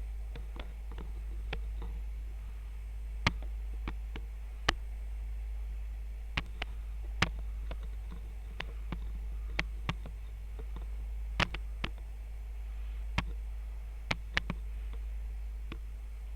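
Light, irregular clicks and taps of metal tweezers against a USB-C charging jack and phone circuit board during hot-air soldering, about fifteen spread unevenly over a steady low hum.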